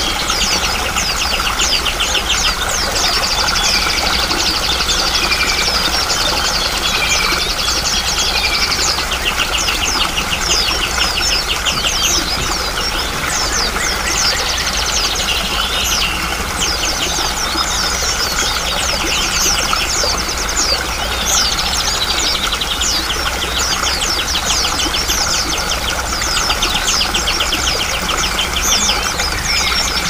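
Many small songbirds chirping and trilling rapidly over the steady rush of flowing water.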